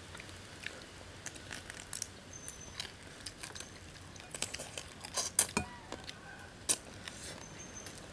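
Blue swimmer crab shells and claws being broken and picked apart by hand at the table: irregular sharp cracks and clicks, the loudest a little past halfway, with a light clink of tableware.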